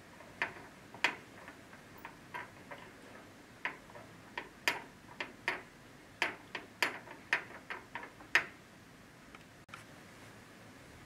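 Irregular sharp clicks and ticks, about twenty of them over eight seconds, from a door lock being worked by hand, then quiet from about eight and a half seconds in.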